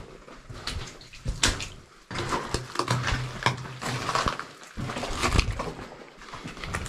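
Footsteps sloshing and scraping through shallow drain water and loose rock in a mine tunnel, an irregular run of splashes and knocks.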